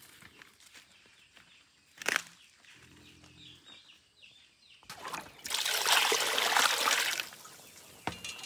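Water pouring and splashing for about two seconds in the second half, after a single sharp knock about two seconds in.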